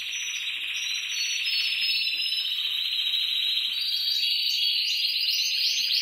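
Spanish timbrado canary singing a long, unbroken metallic rolling trill. About four seconds in, a higher run of quickly repeated notes joins it.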